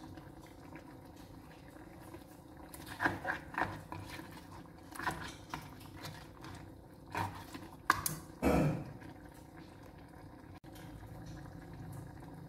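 Fish gravy simmering in a non-stick wok while a spatula stirs and turns the fish heads, with several scrapes and knocks against the pan between about three and nine seconds in, the loudest near the end of that stretch.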